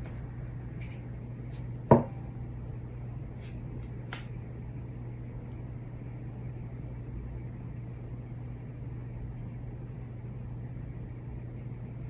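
A single sharp knock with a short ring about two seconds in, among a few faint light ticks, over a steady low hum.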